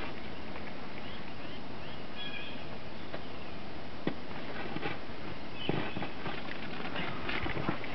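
Footsteps crunching in snow from a small terrier's paws and people's boots, a few scattered soft crunches over a steady background hiss.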